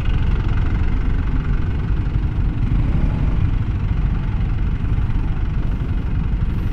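Yamaha XSR155's single-cylinder engine idling amid city traffic, picked up by a microphone inside the rider's helmet.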